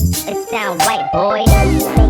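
Hip hop backing track with a vocal line; the drums and bass drop out briefly and come back in about one and a half seconds in.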